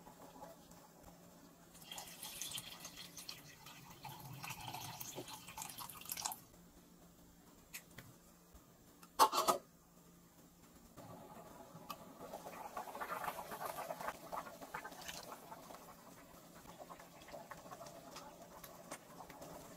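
Beef broth bubbling in a stainless steel stockpot, with splashing and hissing for a few seconds early on. About nine seconds in comes one sharp metal clank as the lid is set on the pot. The broth keeps bubbling under the lid afterwards.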